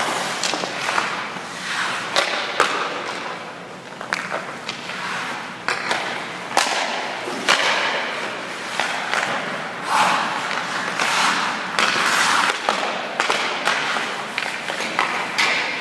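Ice hockey skates scraping and carving on rink ice in repeated hissing surges, with many sharp clacks of sticks and pucks and thuds of a goalie's pads dropping onto the ice.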